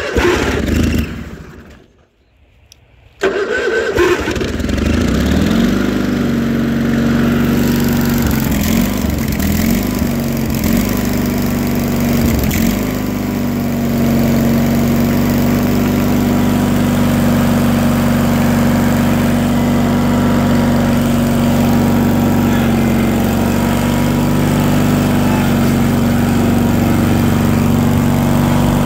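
John Deere 317 garden tractor's Kohler twin-cylinder engine on a cold start: it fires and dies away within two seconds, catches about three seconds in, and runs unevenly with its speed dipping several times before settling into a steady run from about thirteen seconds in.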